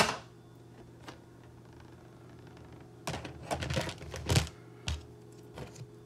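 A stiff plastic sheet being handled and laid down on a towel: a sharp clack at the start, then a cluster of clattering and rubbing about three to four and a half seconds in, and a single knock near five seconds.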